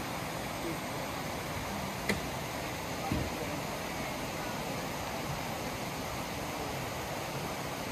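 Steady background hiss with a faint murmur of voices; a sharp click about two seconds in and a short, dull knock about a second later.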